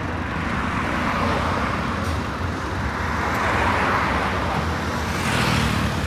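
Road traffic going by: a steady rush of tyre and engine noise from passing vehicles, swelling as one passes close about five seconds in.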